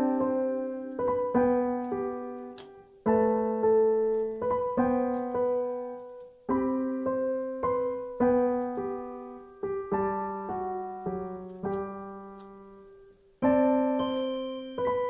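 Background piano music: single notes and chords struck and left to ring out, in short phrases.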